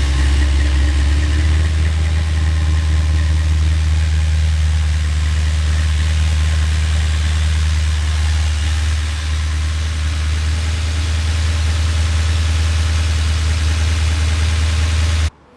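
6.0 LS V8 with a Sloppy Stage 2 camshaft idling steadily, with the lifter noise the owners call loud and treat as a sign the lifters may need replacing. The sound breaks off abruptly near the end.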